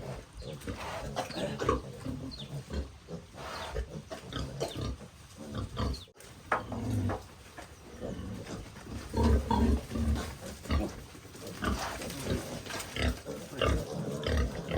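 Piglets grunting and squealing in short, irregular calls while being caught and handled, loudest about nine to ten seconds in.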